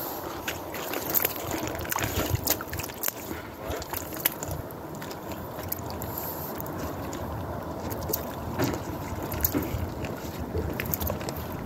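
Wind rumbling across the microphone outdoors on the ice, with scattered small clicks.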